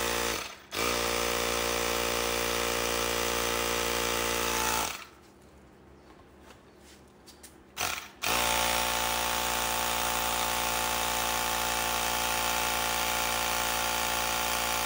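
Hart hand-held cordless air compressor running steadily as it inflates a flat ball through an inflation needle. Its motor cuts out briefly near the start, stops for about three seconds around the middle, then starts again and runs on.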